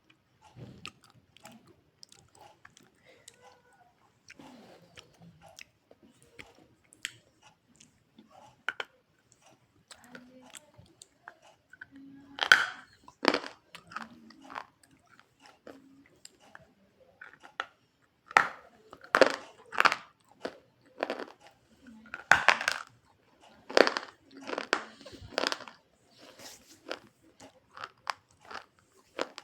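Close-up chewing and crunching of a hard, crunchy white food. Irregular sharp crunches, sparse at first and loudest in clusters in the second half.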